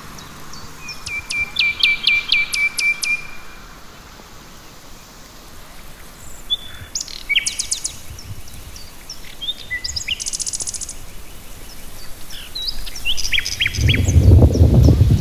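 Several wild birds singing and calling: short chirps and trills, including a run of repeated notes early and a fast buzzy trill a little past the middle. Near the end a loud low rumble comes in under the birdsong.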